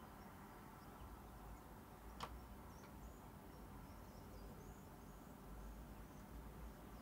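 Near silence: quiet room tone with a low hum, a single faint click about two seconds in, and a few faint high chirps.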